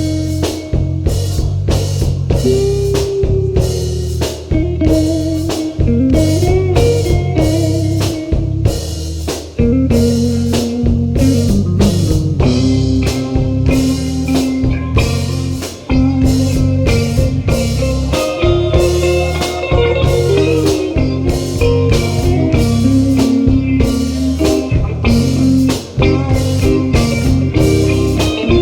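Stoner rock band playing live, an instrumental passage: an electric guitar line over bass and drums, with a steady beat.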